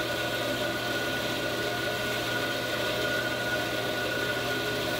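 Jet 14-inch band saw running with no load on its first start-up after a rebuild with new wheel bearings and tires: a steady hum with a thin high whine, running smoothly.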